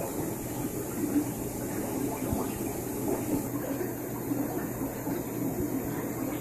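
Steady bubbling and gurgling of air-driven PVC airlift filters in aquarium tanks, with a low steady hum underneath.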